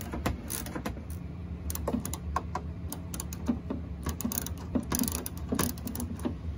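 Hand ratchet with a 10 mm socket on an extension clicking in short, irregular strokes as a headlight mounting bolt is backed out, over a steady low hum.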